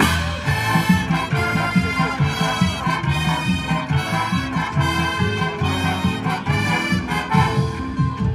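High school marching band playing: brass over a steady, driving beat from drums and low bass notes.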